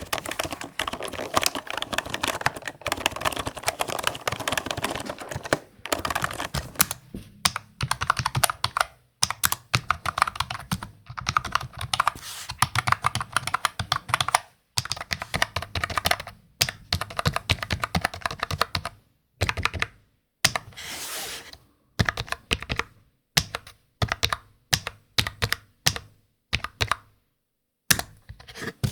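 Typing on a computer keyboard: a fast, dense run of key clicks for the first several seconds, then bursts of typing broken by short pauses.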